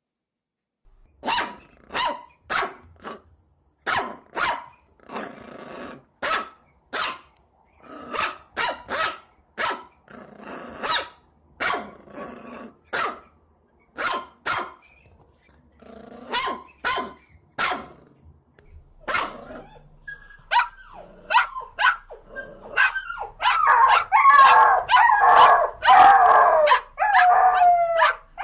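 Puppies barking in short, sharp yaps, one or two at a time. From about twenty seconds in, several puppies yelp and whine at once, louder and overlapping, their pitch sliding up and down.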